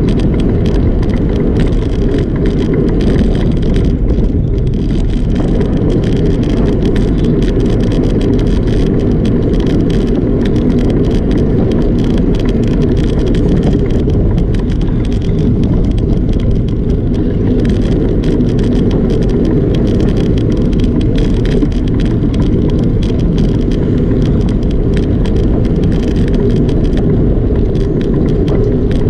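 Steady wind rushing over the microphone of a camera on a moving bicycle, with low tyre-on-pavement rumble and frequent small rattles from the bike.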